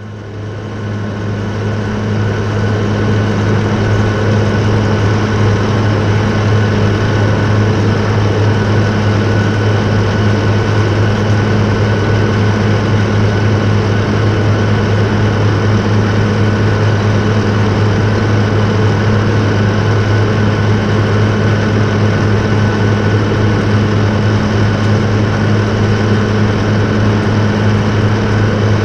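V8 diesel engine of a John Deere 8850 four-wheel-drive tractor running steadily under load while pulling a 50 ft harrow. It fades in over the first couple of seconds and then holds a constant low drone.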